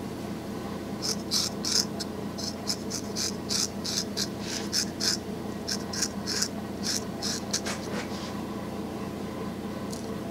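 Barber's hand tools working at the back of a customer's neck: a run of quick, short scraping strokes close by, about three a second, stopping near the end.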